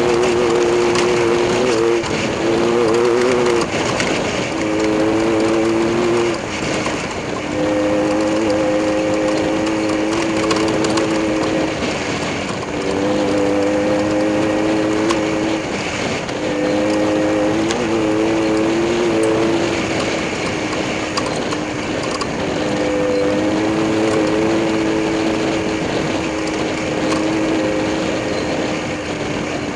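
Race car engine running steadily, its pitch holding for a few seconds and then stepping up or down several times.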